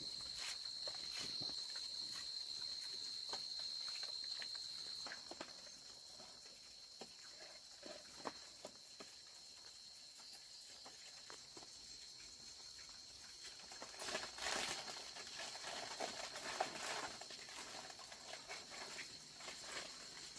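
A steady, high-pitched insect trill, loud for the first few seconds and then fainter, over scattered light taps and clicks. A louder stretch of rustling comes about two-thirds of the way through.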